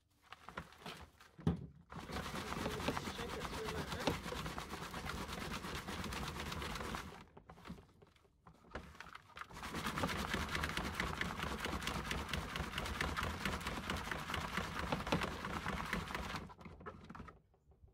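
Green plastic garden sieve shaken rapidly back and forth on the rim of a plastic tub, the compost rattling and rustling through the mesh. It comes in two long bouts of shaking with a short pause between, after a couple of knocks near the start.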